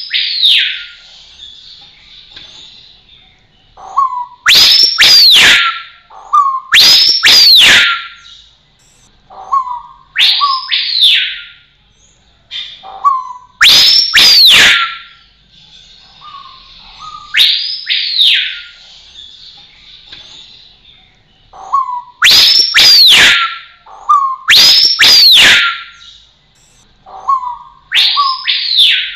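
Rose-collared piha singing: loud whistled calls, each a short low note followed by a high whistle that sweeps up and falls back down, repeated every few seconds and sometimes given twice in quick succession.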